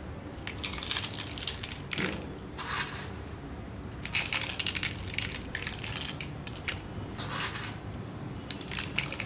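Crisp sev (thin fried gram-flour noodles) being crumbled by hand and sprinkled over puris, in several short crackling, crunching bursts.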